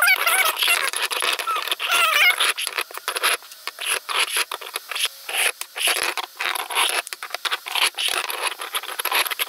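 3D-printed PLA screw-together toy bolts and nuts being twisted and stacked: hard plastic threads scraping and rattling, with rapid clicks and taps as the pieces turn and set down. A few squeaky, wavering chirps come in the first two seconds.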